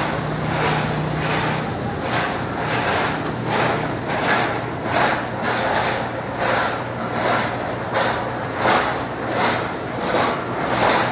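Carrot washing machine running: a steady motor hum under a regular swishing noise that repeats about three times every two seconds.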